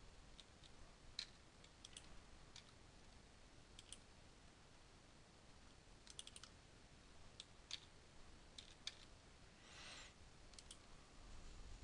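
Faint computer mouse clicks, scattered and sometimes in quick runs of two to four, over near-silent room tone.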